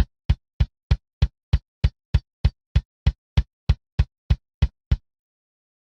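A live-recorded kick drum track played back on its own: a steady run of evenly spaced kick hits, about three a second, all at the same level with dead silence between them. The silence comes from gating and the even level from a drum leveler plugin. The hits stop about five seconds in.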